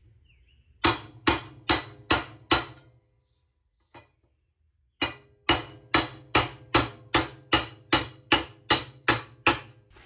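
A hammer strikes a solid aluminium rod, driving the shaft of a washing machine's hub clutch assembly out of the drive plate. There are five blows at about two and a half a second, a pause of about two seconds, then about a dozen more at the same pace, each hit with a brief metallic ring.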